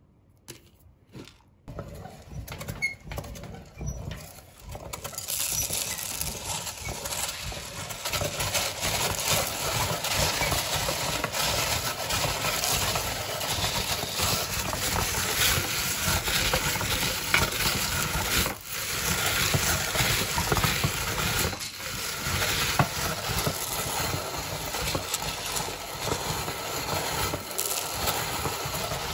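Hand-cranked metal meat grinder crushing crunchy chocolate cereal into powder. At first there are a few scattered crunches and clicks. From about five seconds in the crunching and crackling is dense and continuous, with two brief pauses later on.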